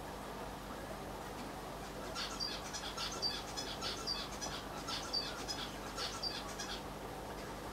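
A small bird chirping: a quick run of short, high chirps starting about two seconds in and stopping shortly before the end, over a steady low background hum.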